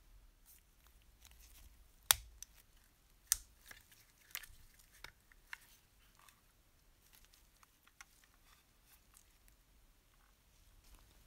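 Sharp clicks and light taps of small model-locomotive body parts being handled and pressed together by hand. The two loudest come about two and three seconds in, followed by a few softer ones.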